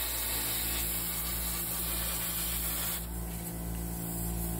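Handheld plasma cutter cutting steel sheet along a straight edge: a steady hiss over a low hum. The hiss drops away about three seconds in as the cut stops, and the hum carries on.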